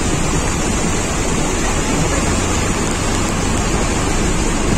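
Flash-flood torrent of muddy water rushing down a valley: a loud, steady, unbroken rush with no pauses or changes.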